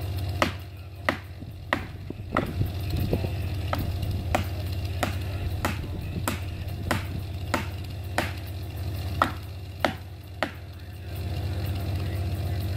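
A chainsaw idling steadily under a run of sharp, evenly spaced knocks, about three every two seconds, like something being struck by hand; the knocks stop a couple of seconds before the end while the idle carries on.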